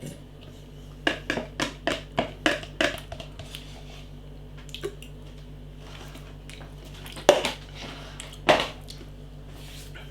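Cutlery clicking and knocking against a plastic instant-noodle pot: a quick run of light clicks in the first few seconds, then two louder knocks later.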